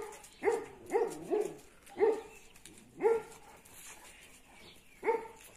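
Kangal dog barking about seven times in short, separate barks, each one dropping in pitch, the last three spaced a second or more apart.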